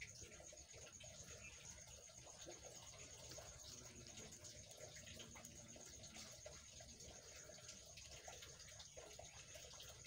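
Near silence: faint room noise with a thin steady high-pitched hiss and a few tiny ticks.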